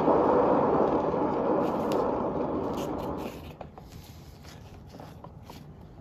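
Hairdryer blowing steadily, easing off and cutting out about three seconds in, followed by a few faint clicks and taps.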